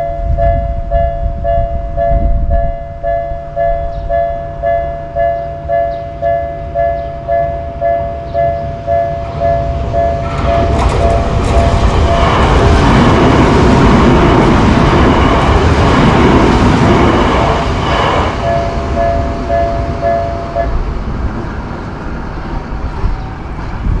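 Japanese level-crossing warning bell ringing its repeated 'kan-kan' ding, about one and a half strikes a second, while an electric train passes through the crossing. The train's rushing wheel and rail noise builds, drowns out the bell for several seconds, then fades. The bell rings on briefly after the train has gone, then stops as the crossing clears.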